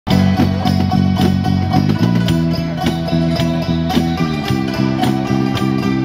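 Live instrumental music: several Thai khim hammered dulcimers play a melody in rapid repeated strikes, with a bass guitar line stepping underneath.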